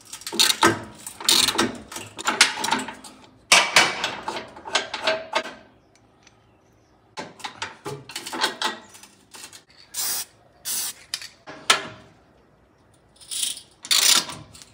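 Hand ratchet clicking in bursts as an 18 mm socket backs out the bolts holding a transmission cross member to the frame, with short pauses between the runs of clicks.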